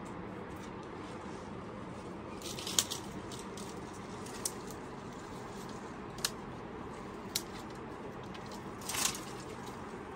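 Dry sticks and branches cracking and snapping underfoot and in the hands: a few sharp snaps, the loudest about three seconds in, and a longer crunching rustle near the end, over a steady background hiss.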